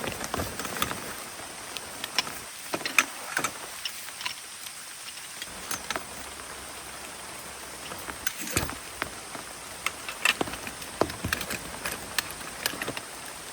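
Rain falling steadily, with irregular sharp taps and knocks scattered through it.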